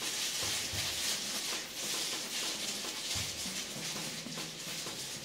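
Plastic-gloved hands tossing green onions through thick red pepper seasoning in a stainless steel bowl: a steady rustling and squishing.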